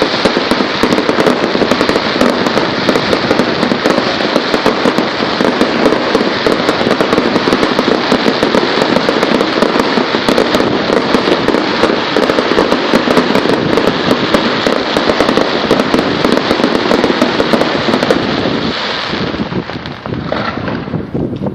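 Fireworks display: a dense, continuous barrage of rapid bangs and crackling that thins out near the end.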